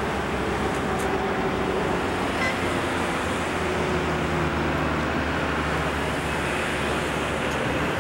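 Steady drone of a tour boat's engine heard from on board, with a rush of wind and water noise over it.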